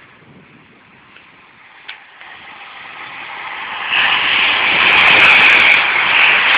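A 12-car electric passenger train passing at speed: a rush of wheel and air noise that swells from faint about two seconds in and stays loud from about four seconds in.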